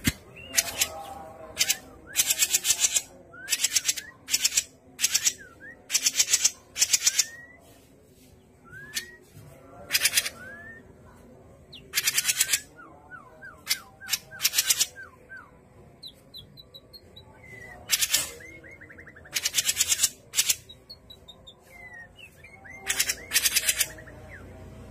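A caged cucak jenggot mini songbird calling: loud, short, harsh rattling bursts again and again, with soft, quick, sliding whistled notes between them.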